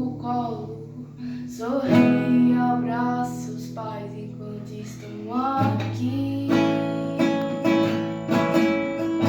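Acoustic guitar playing strummed chords that ring on between strums, with a voice singing over them.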